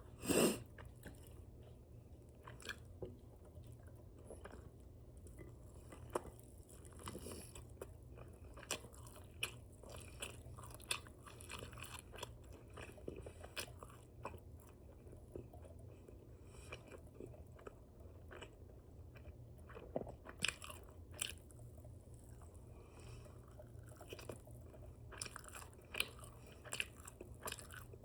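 Close-up open-mouthed chewing and lip smacking of chicken wings dipped in ranch: irregular wet clicks and smacks with occasional crunches. A louder bite comes right at the start.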